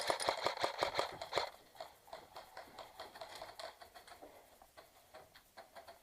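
Airsoft guns firing: a fast run of sharp clicking shots in the first second and a half, then scattered single clicks that grow fainter.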